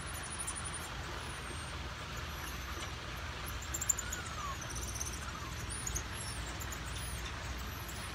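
Outdoor ambience: a steady low rumble and hiss. Faint high chirps and a short falling whistle come about four seconds in, with a brief tap at about the same time.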